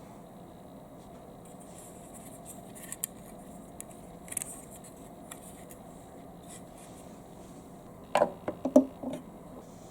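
Hard plastic marble run pieces being handled and clicked together, with a few faint clicks and then a quick cluster of sharp knocks near the end.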